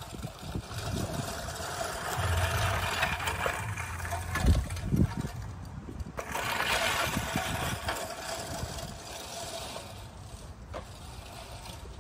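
Scotts 16-inch push reel mower cutting grass: the spinning reel blades whir and clip against the bed knife, louder as the mower passes close and fading near the end. A single low thump about four and a half seconds in.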